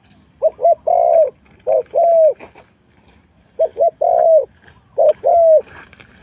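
Spotted dove cooing: two phrases, each a couple of short coos followed by longer drawn-out coos that drop in pitch at their ends.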